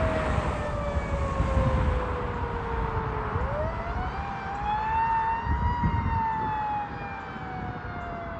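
A fire truck siren on a 2017 KME Severe Service aerial ladder truck, wailing on an emergency response. Its pitch glides slowly down for about three seconds, rises over the next two and a half, then falls again near the end, over a low rumble.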